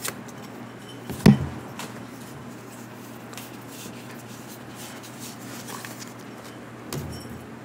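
Quiet handling of Pokémon trading cards on a desk: faint slides and small clicks as cards are flipped, with one sharp thump about a second in and a softer knock near the end.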